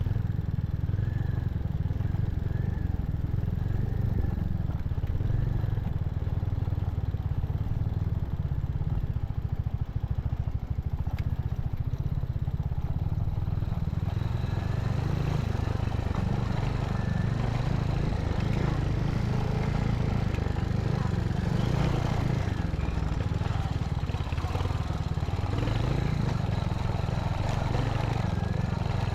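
Royal Enfield Hunter 350's single-cylinder engine running steadily while riding, with rattling and road noise that thicken about halfway through.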